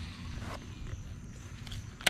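Steady low rumble of wind and handling noise on a body-worn microphone while a baitcasting rod is cast.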